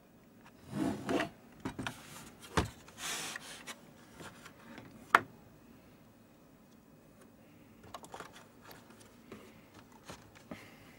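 Handling noises of objects being moved about: rubbing and scraping, a few knocks, and a sharp click about five seconds in, then scattered small clicks.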